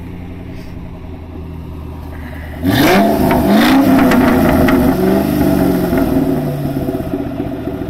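2003 Ford Mustang Mach 1's 4.6-litre V8 through an aftermarket X-pipe exhaust, idling low, then about two and a half seconds in revved hard and suddenly loud. The revs rise and fall several times with sharp crackles before easing back near the end.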